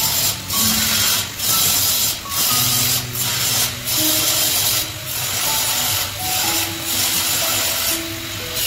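Angle grinder grinding a square steel tube, a loud high hiss that eases off for a moment roughly every second and drops near the end as the disc is lifted, with background music carrying a simple melody underneath.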